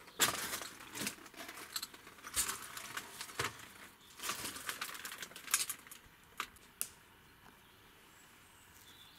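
Footsteps crunching and scraping on debris, in an irregular run of crackles and sharp clicks for about seven seconds, then they stop.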